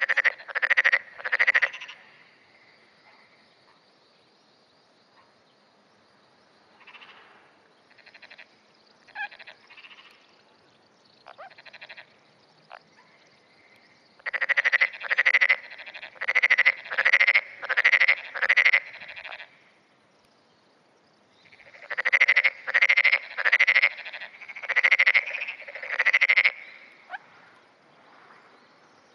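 Black-spotted pond frogs calling: loud runs of rapidly pulsed croaks, a short bout at the start and two longer runs of six or seven repeated calls in the second half, with fainter frogs answering in the gaps.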